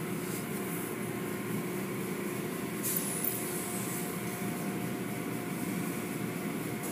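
Automatic tunnel car wash running: a steady mechanical rumble of the wash machinery as the cloth curtains and brushes work over a vehicle, with a short hiss of water spray about three seconds in.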